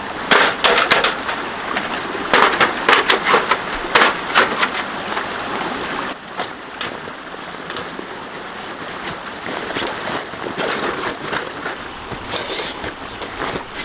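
Flat sheet-metal camp wood-stove pieces clanking and clattering as they are stacked and handled, a quick run of sharp metallic knocks over the first five seconds or so, then fewer and softer knocks. A creek flows throughout, and a fabric carry bag rustles near the end as the metal goes into it.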